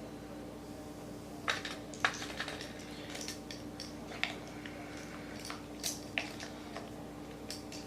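Tablespoon measuring spoon clinking and tapping against a spice container and bowl while ground cumin is scooped out, a string of light, irregular clicks starting about a second and a half in, the sharpest about two seconds in. A steady low hum runs underneath.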